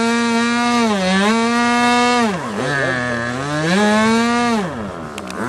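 Engine of a large radio-controlled aerobatic model plane running at high revs. Its pitch dips about a second in, drops sharply about halfway and climbs back up, then falls again near the end.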